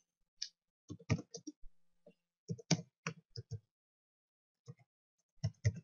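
Typing on a computer keyboard: irregular key clicks in short runs, with a pause of about a second past the middle.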